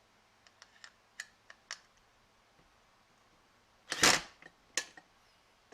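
Light clicks and taps of small hardware being handled, then one short, loud rattling burst about four seconds in, followed by a single sharp click.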